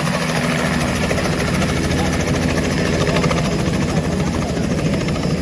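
Loud, steady rushing noise with a fast, even pulsing and a low hum underneath.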